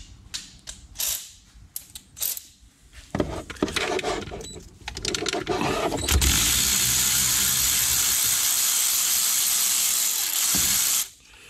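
Cordless electric ratchet backing out an 8 mm stud: after scattered clicks and rattles, it runs steadily for about five seconds and stops abruptly.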